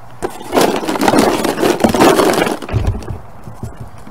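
Hollow plastic Easter eggs clattering and rattling together inside a cardboard box as it is shaken and handled, with a few dull low thumps near the end.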